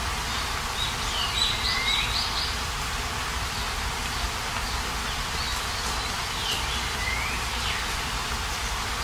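Steady rain falling, an even hiss, with a small bird chirping in two short bouts, the first about a second in and the second about halfway through.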